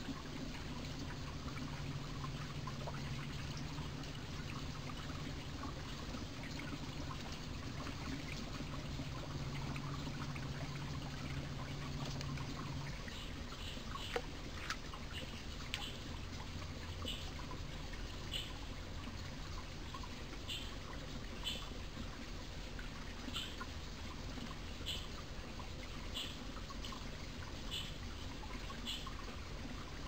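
Mountain stream flowing and trickling steadily. About halfway in there is a single click, and from then on a short high chirp repeats roughly once a second over the water.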